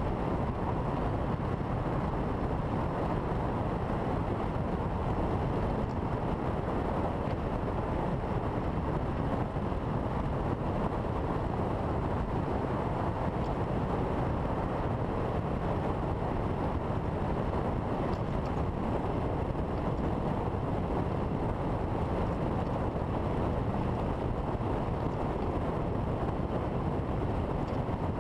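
Steady rush of wind and road noise from an open-cockpit Ariel Atom cruising at freeway speed, with wind buffeting the exposed camera microphone and no distinct engine note standing out.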